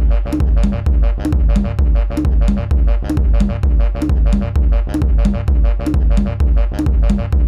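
Guaracha aleteo zapateo electronic dance track: a driving, steady beat with heavy bass kicks and rapid, crisp hi-hats and percussion. The full beat comes in right at the start, after a short break.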